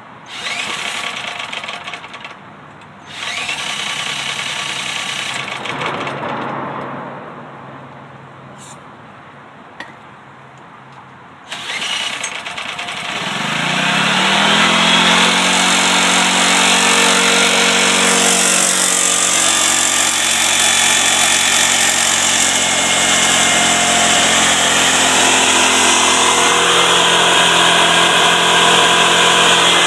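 Portable generator's small gasoline engine spun over twice by a cordless drill without catching. About twelve seconds in it is cranked again, catches, and rises in pitch into steady, loud running on gasoline vapor drawn up through a bubbler.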